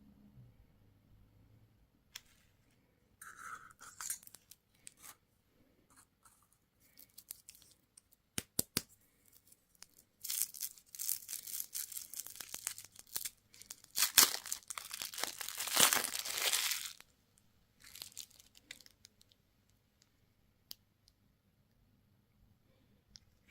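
A candy wrapper being torn open and crinkled, in a dense spell of tearing from about ten seconds in to about seventeen, loudest near the end of that spell. Scattered light clicks and taps come before it.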